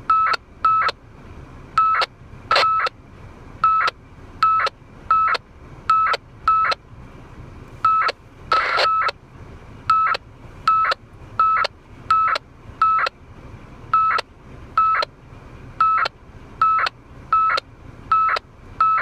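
Short data bursts received by an FM radio on 146.000 MHz, coming through its speaker as brief beeps of a single tone. They repeat irregularly, about one or two a second and often in pairs, over a low receiver hiss. About halfway through, one burst is longer and noisier.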